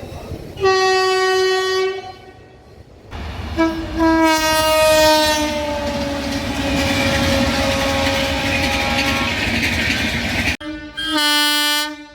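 Indian Railways train horn blowing three times: a short blast, then a long blast whose pitch slowly falls over the rush and clatter of the passing train, then, after an abrupt break, another short blast.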